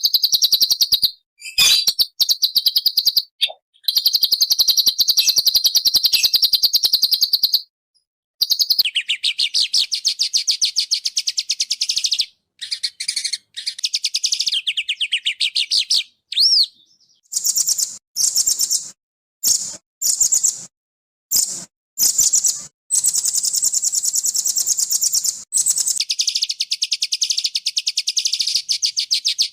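Small songbird singing very fast, harsh runs of rapidly repeated high-pitched notes. The song comes in stretches that stop abruptly several times.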